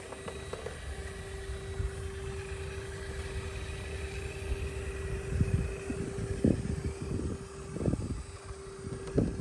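RC rock crawler's electric motor giving a steady whine as the truck creeps over rock, with four sharp knocks of the tyres and chassis against the rock in the second half.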